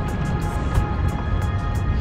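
Background music with a steady beat: held tones over a light ticking rhythm.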